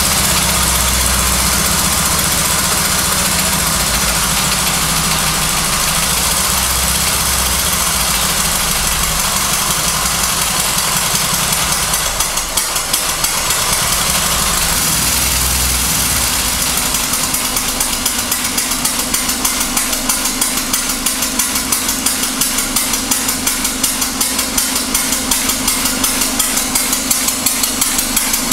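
Homemade steam motorcycle's steam engine running with a hiss, driving two electric generators. About twelve to sixteen seconds in, the low rumble drops away and a steady hum with a regular quick beat takes over.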